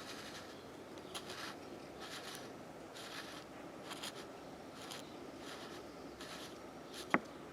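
Faint scraping and rubbing strokes, about one a second, from handling the removed water pump's worn metal impeller, with a sharp click near the end.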